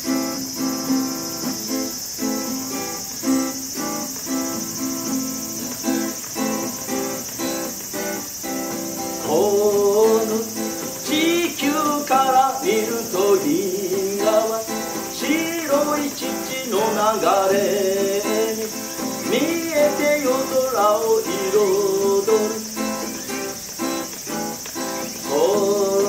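Acoustic guitar played in strummed and picked chords, with a man's voice singing over it from about nine seconds in.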